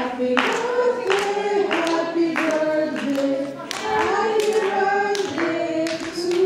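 A small group of voices singing together through microphones, with a steady beat of hand claps.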